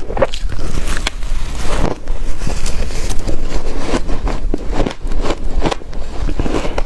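Close-miked crunching and chewing of ice: a loud, dense run of irregular crunches, several a second.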